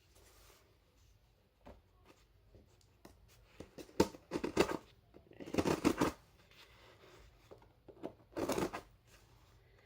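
Parcel packaging being worked open by hand: three short spells of rustling and scraping with clicks, about four seconds in, around five and a half seconds and near the end.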